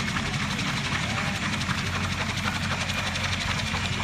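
Mi-2 helicopter running: its twin turboshaft engines and rotor make a steady drone with a fast, even beat from the blades. Faint voices of onlookers underneath.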